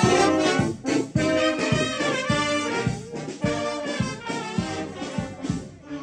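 Street brass band of saxophones, trumpets, trombones and a sousaphone playing together, with a regular pulse of low bass notes under the melody; the playing grows somewhat quieter in the second half.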